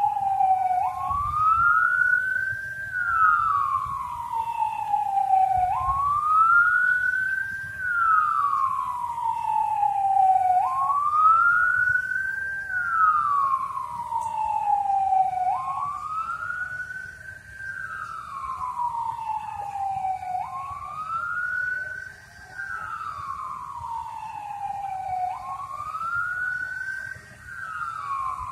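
Siren wailing in a slow, even cycle: the pitch rises for about two seconds and falls for about three, about six times over. It is the signal for a three-minute pause of standing still in remembrance.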